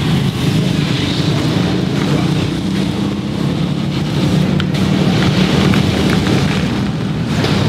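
Suzuki RM-Z450 motocross bike's single-cylinder four-stroke engine running steadily.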